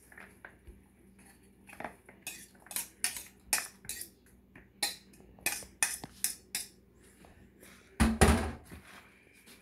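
Sharp clicks and knocks of a plastic bowl against a mixing bowl as chopped herbs and onions are tipped out of it, with a louder clatter about eight seconds in.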